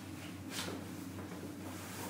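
Steady low hum of room tone with one brief soft rustle about half a second in.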